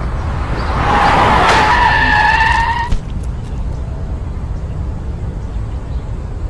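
Car tyres screeching in a hard skid for about two seconds, stopping sharply with a click, over a low steady rumble.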